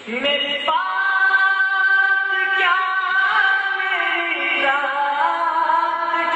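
A single voice chanting a devotional munajaat (prayer of supplication) without instruments, in long held notes that slide up and down between pitches. A new phrase begins just after the start.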